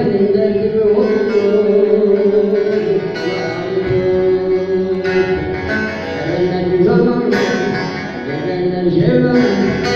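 Bağlama (long-necked Turkish saz) playing a deyiş melody, with a zakir's voice singing along in long held lines.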